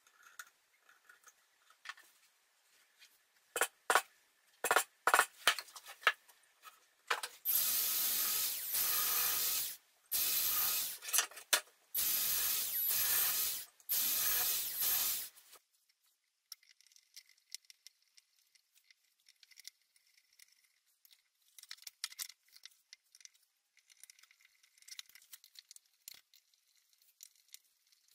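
Cordless drill boring pilot holes into plywood in four short runs of about two seconds each. Before them come a few sharp clicks and knocks, and after them faint scraping and handling noises.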